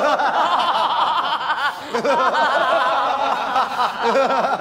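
A group of people laughing hard together, with several voices going 'ha-ha' in quick repeats that dip briefly about two seconds in.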